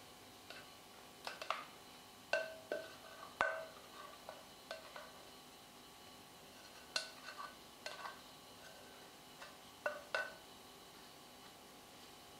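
Scattered light clicks and knocks, some with a brief ring, from a plastic dough scraper working risen bread dough out of a mixing bowl and against a wooden board.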